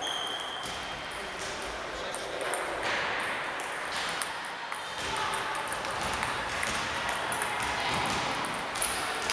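Table tennis balls ticking on tables and bats, many short irregular clicks from several games at once, over a steady background of voices in a large sports hall.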